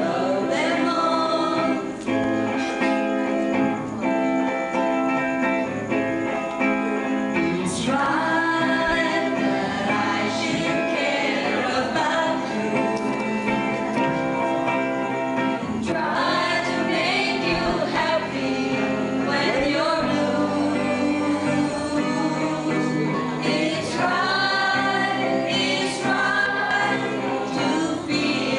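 A small mixed group of men and women singing a song together, with guitar accompaniment.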